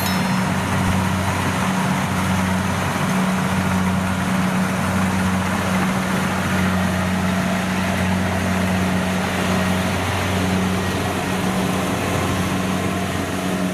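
Kubota rice combine harvester running steadily as it cuts and threshes rice: a constant diesel engine drone with a steady low hum.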